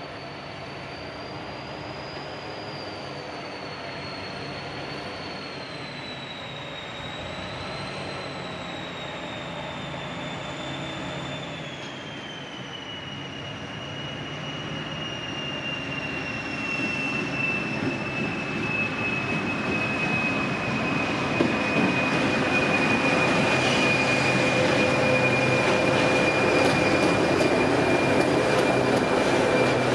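TEM2 diesel locomotive hauling a loaded sand train, approaching and growing steadily louder until it passes near the end. A continuous high-pitched wheel squeal wavers, then slides lower and holds steady, and rail clicks come as the locomotive goes by.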